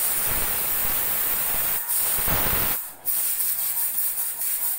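A loud, steady hiss with some low rumble beneath it, breaking off briefly about three seconds in.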